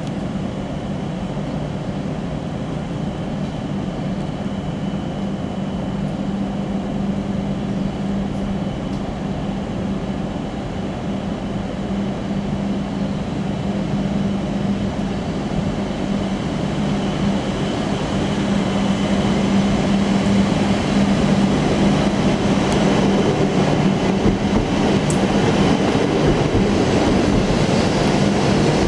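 W7 series Shinkansen departing the station and accelerating past: a steady low hum over rolling noise, growing louder as the carriages draw alongside.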